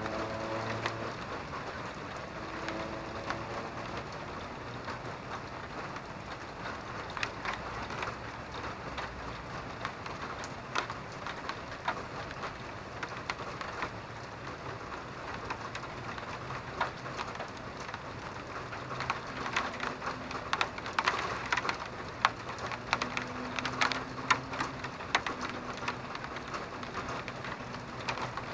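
Steady rain falling, with many individual drops striking close by as sharp ticks and splats, thicker and louder in the last third. A faint low hum comes and goes beneath it.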